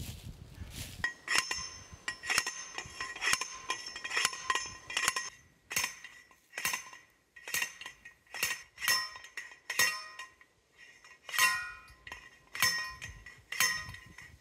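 Sand-point well being driven by hand: a steel driver slammed down onto the steel well pipe's drive cap, each blow a ringing metal clank. The blows come quickly at first, then slow to about one a second.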